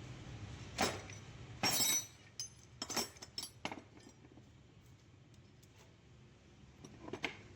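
A string of sharp metallic clinks and knocks, like tools or metal parts being handled: several bunched in the first four seconds and one more near the end, over a faint low hum.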